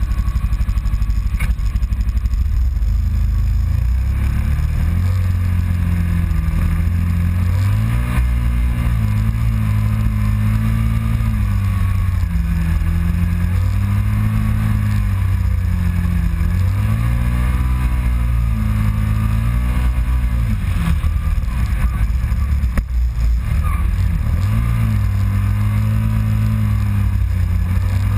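Kawasaki Teryx side-by-side's V-twin engine running under load on sand dunes, its pitch rising and falling again and again as the throttle is worked.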